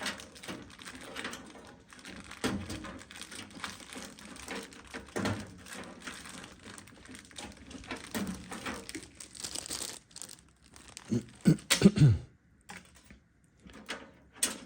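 Hands handling cables and plastic inside a PC case: rustling and light clicking, with a few louder low thumps about eleven to twelve seconds in.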